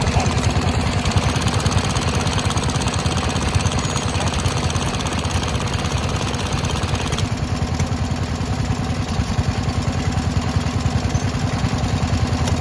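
Small vintage stationary engines running steadily, a rapid even chugging of exhaust beats.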